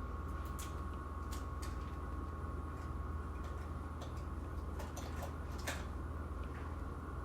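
Study cafe ambience: a steady low hum with a faint steady tone above it, and scattered light clicks and ticks, several bunched together about five seconds in.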